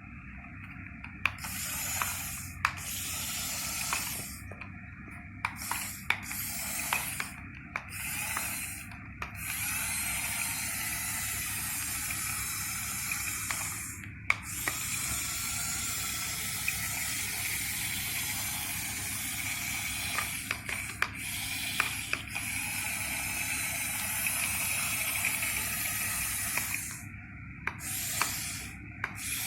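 Radio-controlled model excavator's motors running with a steady whirring hiss. They stop and start again several times, with scattered sharp clicks.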